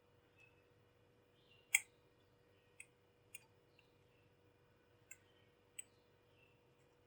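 Scattered light clicks and taps of a murukku press being handled while its inside is greased with oil, about six in all, the loudest nearly two seconds in.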